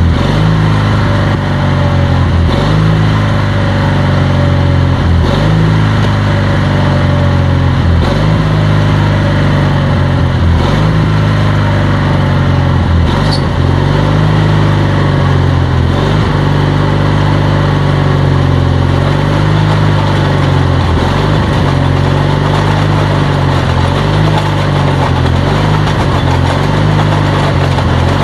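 Riding lawn tractor's small gasoline engine running steadily, driving a rototiller attachment that is digging into a crushed-gravel driveway. The engine note dips briefly every few seconds, and there is one sharp click about halfway through.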